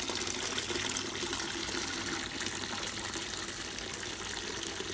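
Hot leftover backset from a moonshine still gushing in a steady stream from the still's drain pipe into a partly filled plastic bucket, splashing into the liquid already in it.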